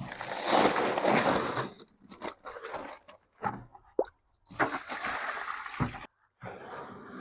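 Wet concrete mix sloshing and splashing as water is added and stirred in to set a fence post. The sound comes in several separate stretches with sudden breaks between them.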